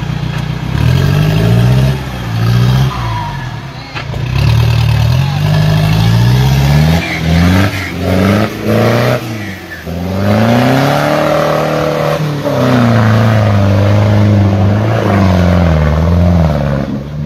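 Off-road 4x4's engine revving repeatedly under load as it churns through deep mud, its pitch rising and falling several times.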